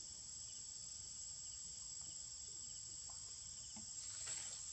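Steady high-pitched chorus of insects, crickets or cicadas, droning without a break, with a brief swell of noise near the end.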